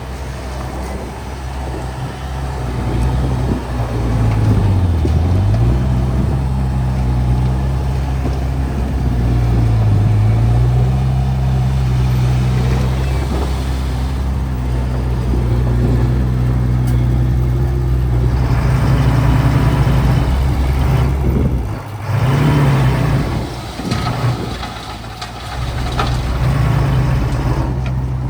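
A heavy earthmoving machine's diesel engine running under load. Its pitch sags and recovers twice in the first half, and there is a rougher, noisier stretch about two-thirds of the way through.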